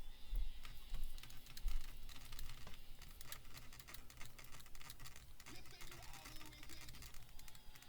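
Irregular small clicks and taps of a hand screwdriver and small screws being worked into an RC truck's diff cover, with a few dull low thumps in the first two seconds.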